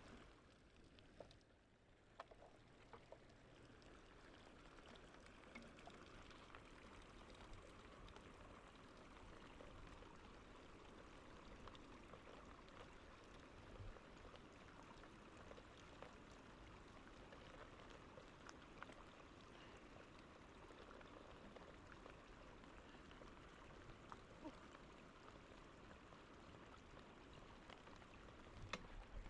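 Faint steady hiss of water, with scattered light ticks.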